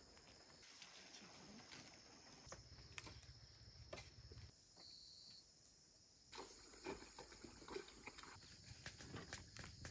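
Near silence: faint outdoor background with a steady high-pitched hum and scattered faint ticks.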